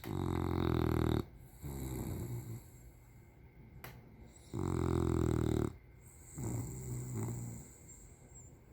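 English bulldog snoring in deep sleep: twice, a loud snore about a second long followed by a softer one, the pair repeating about every four and a half seconds.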